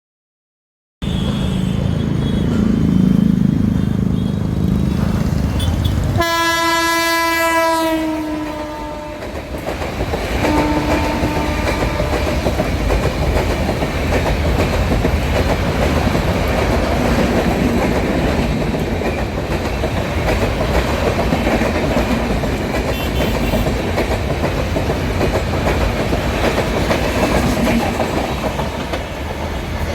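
Indian Railways express train passing at speed, its wheels rumbling loudly on the rails. About six seconds in, the locomotive's horn sounds for about two seconds, its pitch dipping slightly as it ends. A brief second toot follows a few seconds later.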